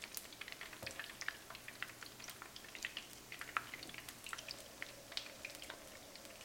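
Battered chicken pieces deep-frying in hot vegetable oil in a frying pan: a steady patter of irregular crackles and pops.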